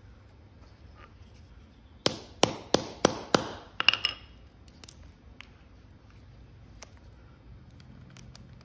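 Hammer striking a small setting punch, about six sharp blows in quick succession starting a couple of seconds in, then one lighter tap: setting a twist-lock fastener through sail-cover fabric.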